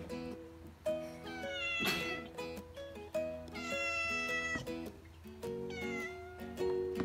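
Light plucked-string background music, ukulele-like, with a cat meowing three times over it; the first meow rises in pitch and the second is the longest.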